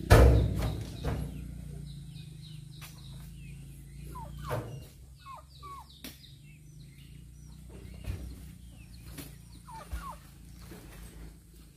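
Oil palm fruit bunches thudding into a dump truck's bed as they are thrown in by hand, the loudest thud just at the start and a few weaker knocks later. Between them a chicken clucks in short bending calls, with small birds chirping and a low steady hum under the first half.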